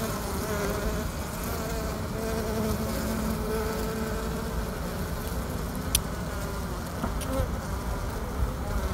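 Honey bees buzzing at close range, a steady hum that wavers in pitch, with a couple of faint ticks partway through.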